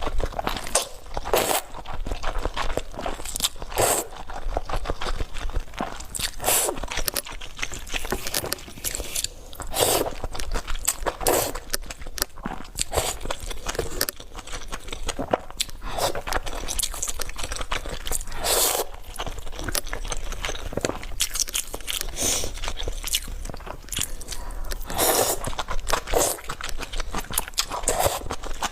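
Close-miked chewing and biting sounds of a person eating, with repeated crunches and wet mouth sounds at irregular intervals.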